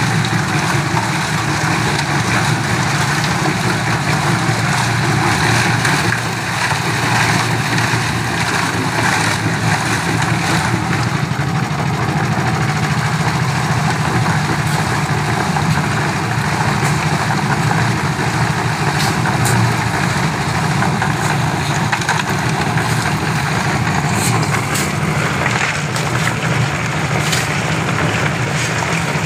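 Portable concrete mixer's small engine running steadily without a break, a constant low hum.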